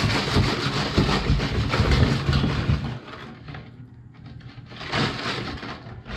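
Wire whisk beating batter in a stainless steel mixing bowl, a fast clattering of wire against metal for about three seconds, then softer and slower.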